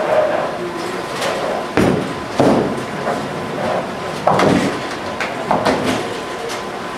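Bowling alley: a ball rolling down the lane and crashing into the pins about two seconds in, followed by more sharp knocks and clatter of pins and alley machinery.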